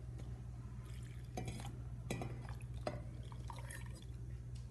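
Buttermilk poured from a steel tumbler into a steel mixer-grinder jar of ground coconut chutney, a faint splashing pour with a few light metal knocks and clinks.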